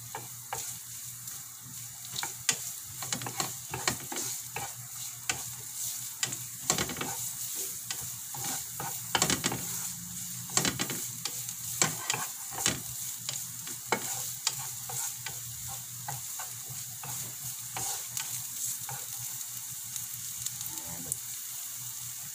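Chopped ginger, garlic and onion sizzling in hot oil in a nonstick frying pan while a wooden spatula stirs them, with frequent short knocks and scrapes of the spatula against the pan. The aromatics are being sautéed at the start of cooking.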